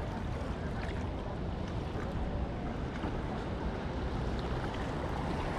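Steady wind rumbling on the microphone, with small ocean waves washing against shoreline rocks.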